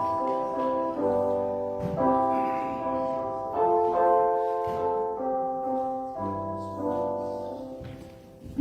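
Piano music: slow sustained chords changing about once a second, fading out near the end.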